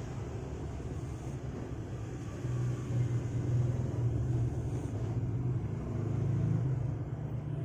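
Orange cat snoring in its sleep: a low rumble that swells louder twice, about two and a half seconds in and again about six seconds in, with its breaths.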